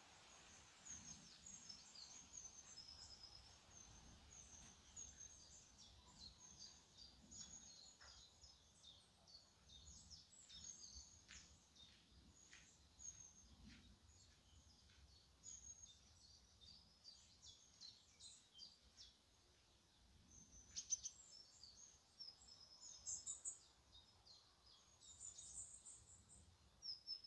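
Faint birdsong: many short, high chirps and twitters from several birds, with a few louder bursts in the last third.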